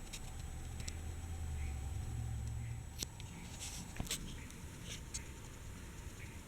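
Scattered light clicks and taps from a plastic Hot Wheels toy track set and die-cast car, over a low rumble that fades about three seconds in.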